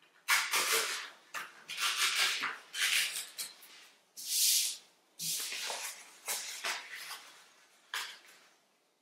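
A sheet of paper being folded and creased by hand on a tabletop: a quick series of crisp rustles and crackles. A longer smooth swish of a hand sliding over paper comes about four seconds in.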